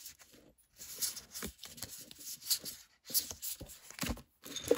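Woodland Wardens Oracle cards being handled: cards sliding and flicking against one another in irregular bursts of rustle, with a few short knocks as the deck is gathered together.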